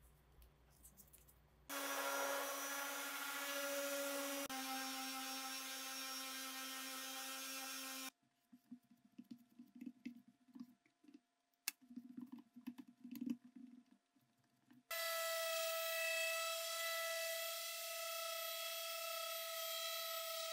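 An electric random-orbit sander runs steadily on a plywood panel, a loud even whine, through the last several seconds. Before it, quiet irregular rubbing and scraping as wood filler is wiped into the plywood by hand. Earlier still, another power tool runs steadily for about six seconds, its pitch dropping partway through.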